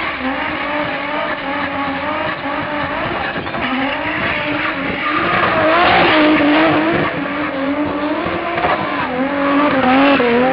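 A car's engine held at high revs, its pitch wavering up and down, while its tyres squeal and skid on the tarmac. The squeal and engine are loudest about six seconds in and again near the end.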